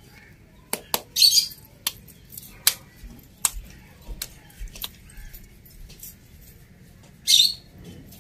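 Two short, harsh bird calls, the loudest sounds, about a second in and again near the end. Between them come scattered sharp clicks and pats as a stuffed dough ball is patted flat between the palms.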